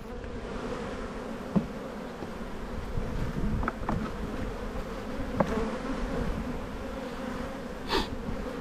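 Honeybees humming steadily over an open hive full of bees, with a few light knocks and a short scrape near the end as a frame is lifted out.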